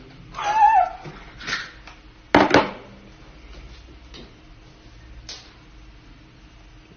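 A brief high vocal cry, then a loud double thump about two and a half seconds in, followed by a few fainter knocks.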